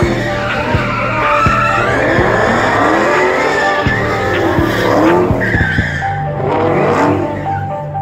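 A drifting car's tyres squealing in long wails that rise and fall, with the engine revving hard underneath.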